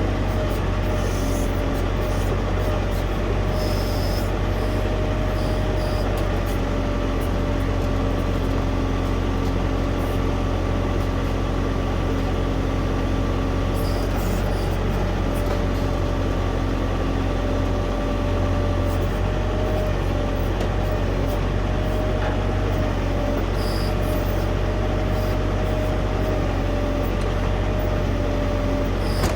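Tractor diesel engine running at a steady speed, with a steady high whine over the engine note.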